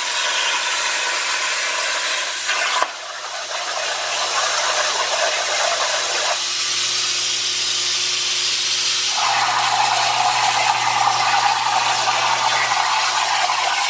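Plasma cutter torch on a CNC plasma table hissing steadily as it cuts quarter-inch steel plate, with a low hum beneath. The hiss dips briefly about three seconds in and shifts in tone twice later on.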